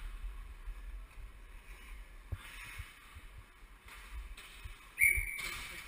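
Ice hockey skate blades scraping and carving across the ice, in uneven rasping patches over a low rumble, with one sudden loud, sharp scrape about five seconds in.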